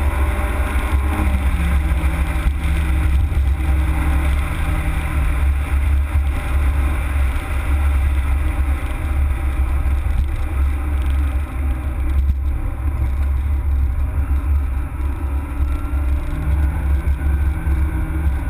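Citroën Saxo VTS's 1.6-litre 16-valve four-cylinder engine running under way, heard from inside the car over a heavy low rumble. Its pitch drops about a second in and climbs again near the end.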